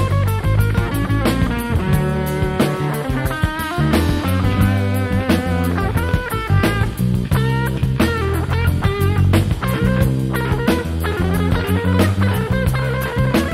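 Instrumental jazz-funk: electric guitar playing quick, winding lines over a steady electric bass groove and a drum kit.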